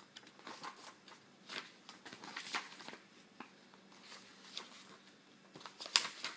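Irregular scratching and rustling handling noises with a sharper click about six seconds in.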